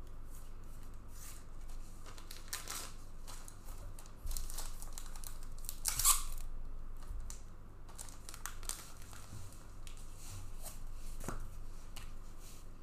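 Trading card box and pack wrapping being torn open and crinkled as the cards are handled: irregular rustling and crackling, loudest about six seconds in.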